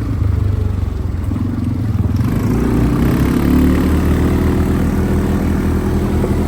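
Quad bike (ATV) engine running steadily, picking up revs a little about two seconds in.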